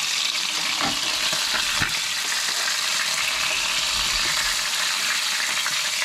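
Fish frying in hot oil in a pan: a steady sizzling hiss with a few light ticks. The pan is hot enough that the fish are scorching.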